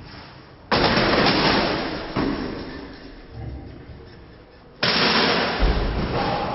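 Two loud, sudden crashes about four seconds apart, each trailing off in a noisy rattle over a few seconds.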